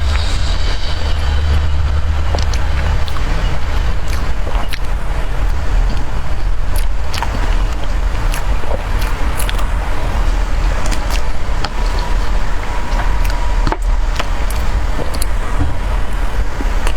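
Close-miked eating of a soft tiger skin dessert: scattered small mouth clicks and chewing sounds over a steady low rumble.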